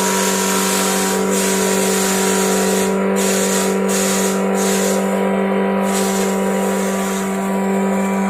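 Falcon electric shredder-chipper running with a steady hum. Over it is a hissing noise that dips out briefly several times, around the third to sixth second.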